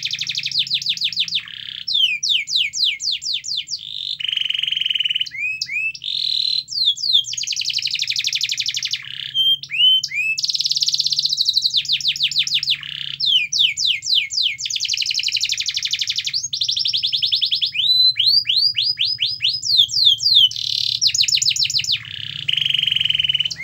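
Domestic canary singing a long, loud song of changing phrases: fast trills of repeated rising notes alternating with buzzing rolls, each phrase held a second or two. The song breaks off at the very end.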